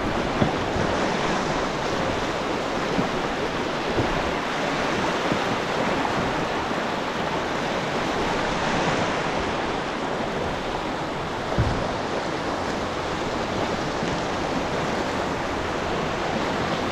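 River whitewater rushing and breaking steadily around the hull of an open canoe surfing a standing wave, with an occasional dull thump, the clearest about twelve seconds in.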